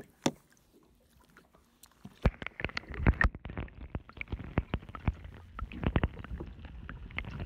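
Water lapping at the surface, then muffled underwater sloshing and knocking as the microphone goes below the waterline, with a dense run of dull thumps and clicks from about two seconds in. One sharp click comes near the start.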